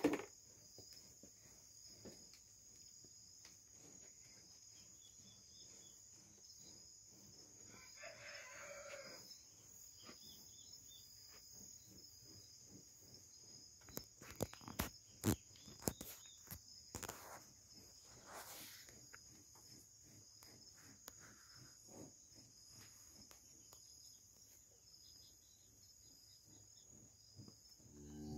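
A rooster crows once, about eight seconds in, over a faint, steady chirring of crickets. A few short, faint clicks follow about halfway through.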